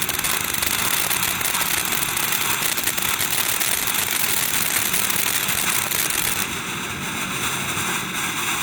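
World Class Fireworks Behemoth, a 500-gram safe-and-sane fireworks cake, spraying sparks with a steady loud hiss and dense crackle, thinning slightly about six and a half seconds in.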